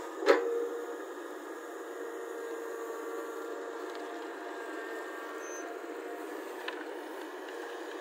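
Caterpillar hydraulic excavator's diesel engine running steadily while it digs soil. There is one sharp, loud clank just after the start and a faint click near the end.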